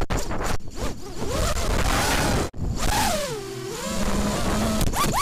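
Brushless motors and 5-inch tri-blade props of an FPV racing quadcopter (Cobra 2204 2300kv motors on a Lumenier QAV210), heard from on board with wind rushing over the microphone. The whine swoops up and down in pitch as the throttle changes. About halfway through it cuts out for an instant, then dips low and climbs again, ending on a quick rising whine.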